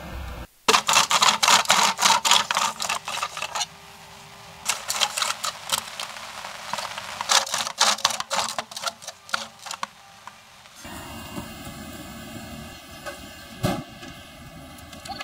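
Traditional hand-powered bow drill, a wooden spindle spun back and forth by a strap and cross-bar, boring into wood held in a vise: fast runs of rattling clicks, pausing briefly about four seconds in and stopping about ten seconds in. A single knock near the end.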